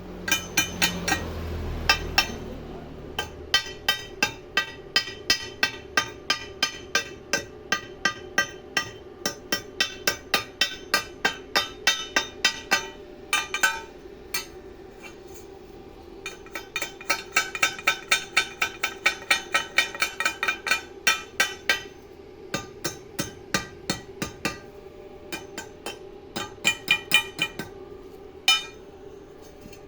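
A hammer striking metal repeatedly, in runs of ringing blows about three to four a second, with short pauses between the runs. A steady hum runs underneath.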